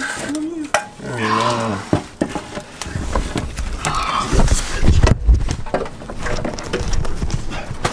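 Short bits of voice, then from about three seconds in a run of irregular knocks, thuds and light metal clatter from hands and tools working on the car's parts.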